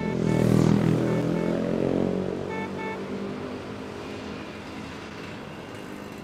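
Traffic-jam street noise: a vehicle engine running loudly, strongest in the first two seconds and then settling into a steady, fading rumble. Three pairs of short horn beeps sound in the first three seconds.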